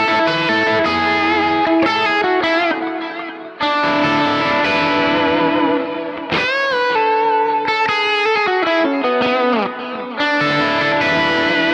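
Electric guitar played through a Kemper Profiler amp profile with effects: ringing chords and sustained, lightly overdriven notes with several bends in pitch. A swell near the middle glides up and back down.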